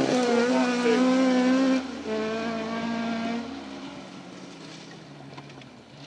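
Mk2 Ford Escort rally car's engine held at high revs as the car drives away, with a short break in the note about two seconds in. The sound then drops in pitch and fades as the car pulls away into the distance.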